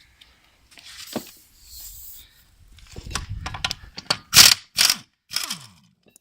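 Mechanic's hand tools working on metal during a brake job: quick ratcheting clicks, then a few loud separate metallic knocks, the loudest about four seconds in.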